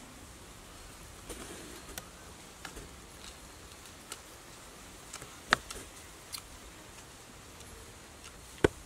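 Scattered crisp crunches and clicks of charred roasted chicken being bitten and torn apart, the two sharpest about five and a half seconds in and near the end, over a steady low hiss.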